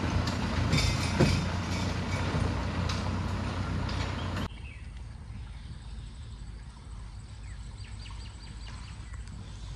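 A motor vehicle's engine running as it pulls away along the lane, with a sharp knock about a second in. About halfway through it cuts off abruptly to the much quieter steady hiss of a small shallow stream, with a faint thin high whine over it.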